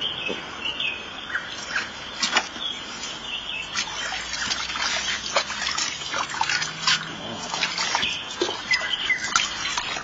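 Water splashing and dripping in a plastic basin as hands scoop and rub it over a wet puppy's coat, in irregular little splashes. Birds chirp briefly now and then.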